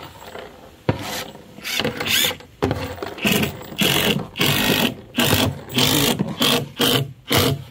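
Power drill driving screws into mahogany decking planks, running in many short stop-start bursts in quick succession.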